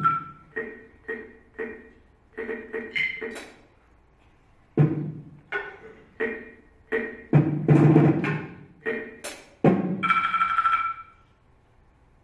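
Mallet strokes on a tabletop set of small percussion objects, including a wooden block, played in irregular bursts of quick strikes with short pauses between. A last stroke about ten seconds in rings on as a clear tone for about a second before dying away.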